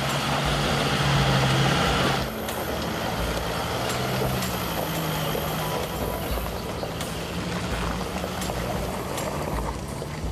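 Heavy truck engine running, its pitch shifting as it labours over rough ground, louder for the first two seconds and then dropping suddenly.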